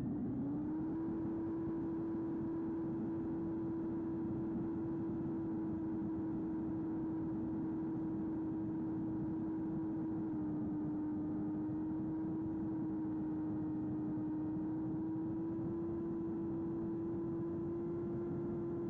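Baby AR Wing Pro's small electric motor and propeller running at steady cruise throttle: an even, steady hum, dipping slightly in pitch about halfway through, over the rush of wind across the airframe.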